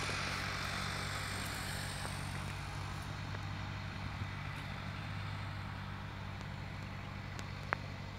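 Farm tractor diesel engines running steadily under load while pulling reversible mould-board ploughs through the soil, slowly fading. A single sharp click comes near the end.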